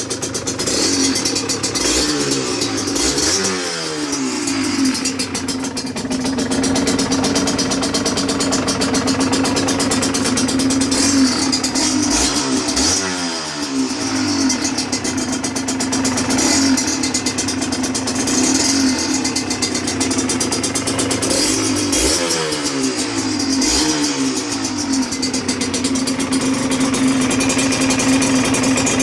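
Yamaha DT125RE single-cylinder two-stroke engine breathing through a full DEP exhaust system, running steadily and revved three times about ten seconds apart, the revs falling back each time.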